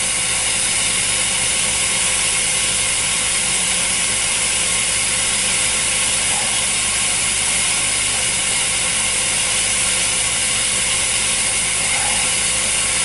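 Glassworking torch flame on a glass lathe hissing steadily, with a faint steady hum from the running machine underneath.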